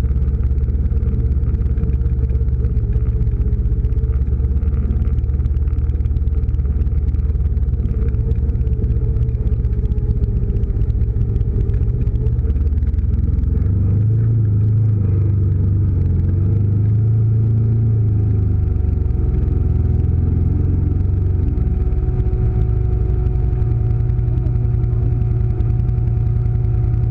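ATV engine running steadily as it climbs a rocky dirt trail, a loud low drone. Its pitch shifts up and down for a few seconds about halfway through as the throttle changes, then holds steady.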